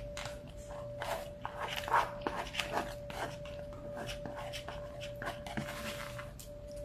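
Plastic fork scraping and clicking against the inside of a tilted foam bowl to gather leftover rice, with short squeaks from the foam, under a steady faint hum.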